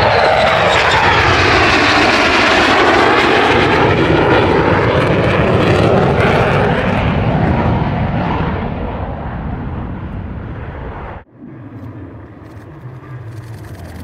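F-35 Lightning II jet, its single F135 afterburning turbofan lit, making a loud jet roar with a sweeping, phasing whoosh as it passes. The noise fades and dulls over the last several seconds, with a sudden brief drop about eleven seconds in.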